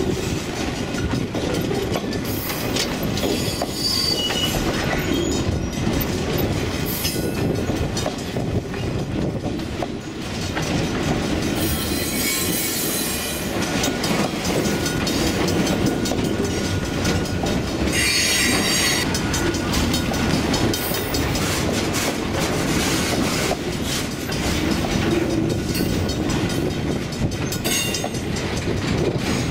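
Ringling Bros. and Barnum & Bailey circus train rolling past close up, its cars rumbling and clattering steadily over the rails. Wheels squeal briefly several times, most strongly a little before halfway and again about eighteen seconds in.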